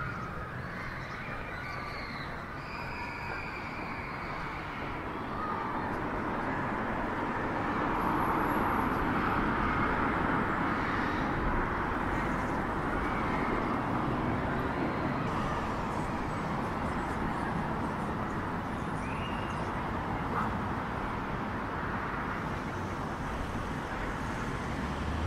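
Outdoor city street ambience: a steady wash of road traffic noise that grows louder about six to eight seconds in, as if vehicles pass close by.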